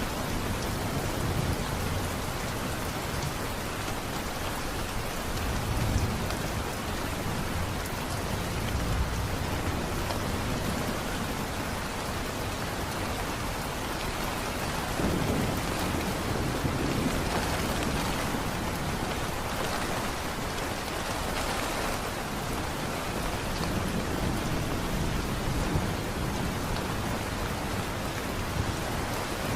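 Steady heavy rain falling, with low rolls of thunder rumbling now and then, the strongest about halfway through.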